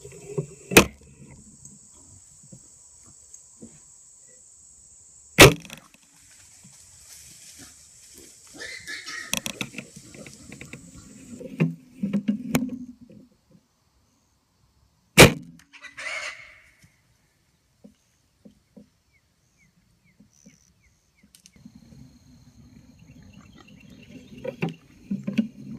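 Feral hogs grunting as they feed, in low rough bouts near the end, over a steady high buzz of insects in the first half. Three sharp, loud cracks stand out, about one second in, about five seconds in and about fifteen seconds in.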